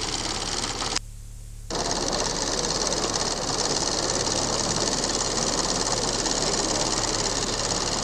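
Steady, fast mechanical rattle of a small motor-driven mechanism over a low steady hum; the rattle drops away for under a second about a second in, then runs on evenly.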